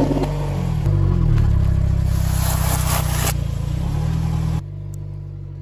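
Car engine running at low speed with a steady low hum, its pitch shifting a little about a second in, with a hiss over it for about a second in the middle. About four and a half seconds in it cuts abruptly to a quieter engine hum.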